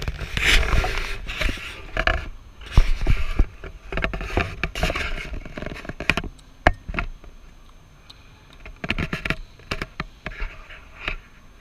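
Handling noise from a handheld camera being swung around: irregular scraping and rubbing on the microphone with sharp knocks, in bursts during the first few seconds and again near the end.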